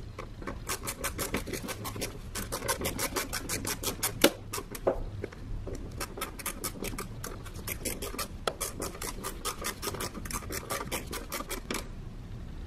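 Craftsman ratchet turning the T20 Torx screws that hold a mass airflow sensor, its pawl clicking rapidly, several clicks a second, in a long run.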